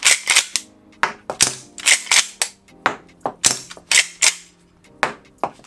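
S&T M1887 airsoft lever-action shotgun being cycled by hand, its lever and action clacking sharply in a quick series of clicks as the plastic shells are ejected one after another until the magazine tube is empty.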